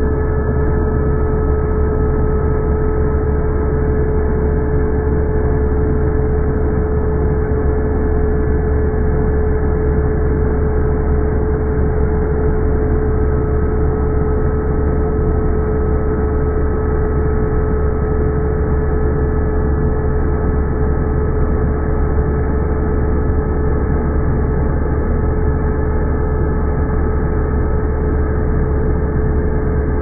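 Vacuum cleaner running steadily: an even rushing noise with a constant whine from the motor.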